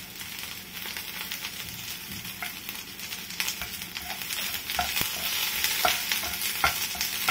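Sliced onion and garlic sizzling in hot oil in a non-stick frying pan, stirred with a wooden spatula. The spatula knocks and scrapes against the pan, more often in the second half.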